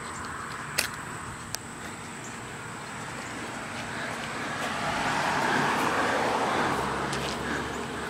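A vehicle driving past close by, its engine and tyre noise swelling to a peak about five to seven seconds in. Two brief clicks in the first two seconds.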